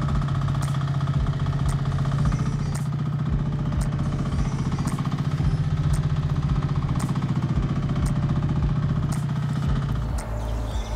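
Small Koop diesel engine of a mini excavator running steadily as the machine moves on its tracks, with light clicks every second or so. The engine sound stops about ten seconds in.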